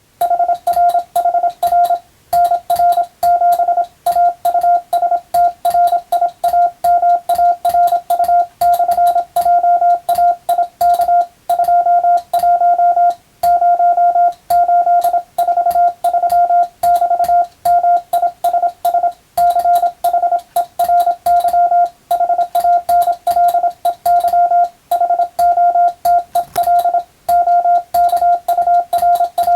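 Morse code (CW) sent as a steady single-pitch tone keyed on and off in dots and dashes at a brisk, even pace. Each tone starts and stops with a slight click.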